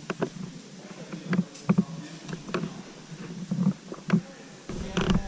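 Irregular knocks, scrapes and clatter of cavers scrambling over loose breakdown rock, with boots and gear striking stone. A low rumble sets in near the end.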